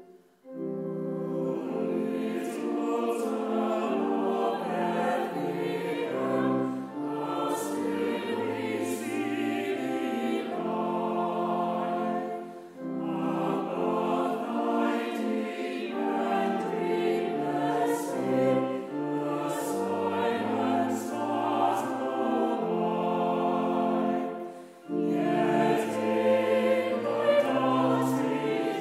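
A choir singing a carol in parts, in phrases with short breaks about 12 and 25 seconds in.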